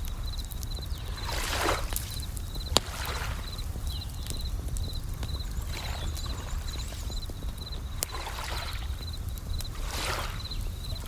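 Bell crickets chirping in short high repeated groups over a low steady rumble, with waves washing in swells every few seconds. A few sharp crackling pops from a campfire stand out, the loudest about three seconds in.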